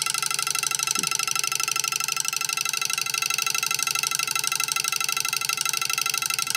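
Homemade twin-coil vibrating switch buzzing steadily with a high-pitched tone. An iron rod chatters between two coils, making and breaking the circuit like an electric bell's interrupter.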